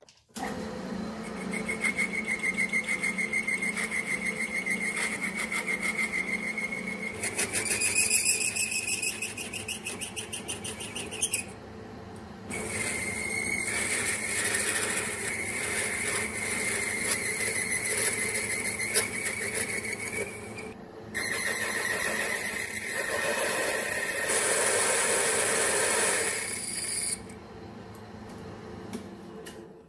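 Metal lathe spinning a brass hex nut in a three-jaw chuck while a boring bar cuts its bore: a steady machining sound with a high-pitched ringing tone, which breaks off briefly twice.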